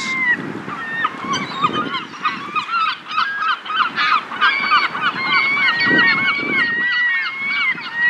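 A flock of large gulls calling over and over in a dense, overlapping chorus of short yelping calls while squabbling over food on the water.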